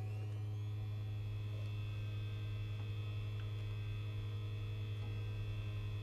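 Steady electrical mains hum from a wall charging unit powering a robot plugged into it: a low buzz with a faint high whine above it that rises and settles in the first second.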